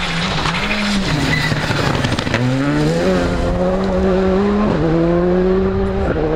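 Rally car engine at full throttle on a loose gravel stage, its note climbing, then dropping sharply at each gear change, several times over, with gravel and tyre noise underneath.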